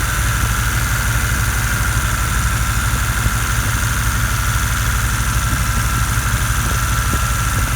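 1988 Chevy pickup engine running with its A/C compressor noise, a steady low rapid drone with a constant high whine over it; the owner is asking whether this compressor noise is normal.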